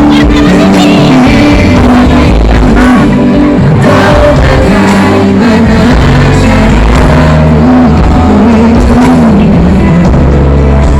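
Music with a singing voice and a heavy, steady bass, played very loud throughout.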